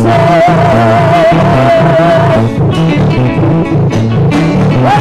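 Live gospel band music with a bass line and beat. One long wavering note, held for about two seconds, stands out at the start and then stops.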